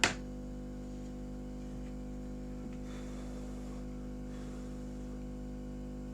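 A single sharp click, then a steady electrical hum made of several constant low tones from the repair bench equipment.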